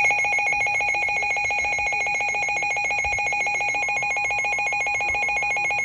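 Emergency alert attention tone: a loud electronic beep that holds its pitch while pulsing very rapidly, like a ringing telephone.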